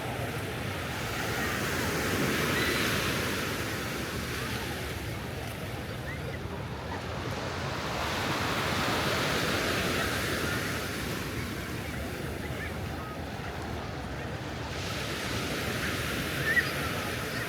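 Ocean surf breaking and washing up the beach, swelling twice as waves come in.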